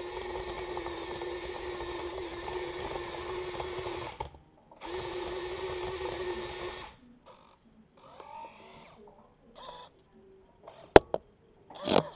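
Small electric motors of a Kyosho Komatsu 1250 remote-control model excavator, 1:50 scale, running with a steady whine. The whine breaks off briefly about four seconds in and stops for good about seven seconds in. Fainter snatches of motor noise follow, then two sharp knocks near the end, which are the loudest sounds.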